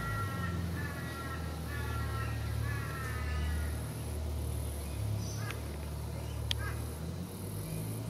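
An animal calling four times in quick succession, over a steady low rumble.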